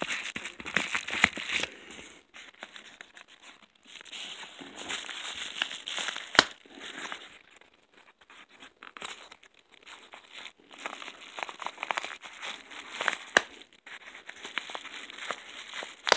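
A yellow paper mailing envelope being torn and crumpled open by hand, in several bouts of crinkling and ripping with a few sharp snaps and a pause in the middle; the envelope is hard to open and gives way slowly.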